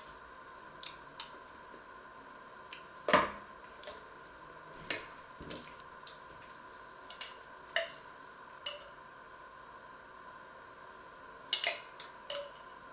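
Table knives, a spoon and a glass jam jar clicking and knocking against a wooden cutting board and worktop while bread is spread: scattered single taps, loudest about three seconds in and again near the end. A faint steady hum runs beneath.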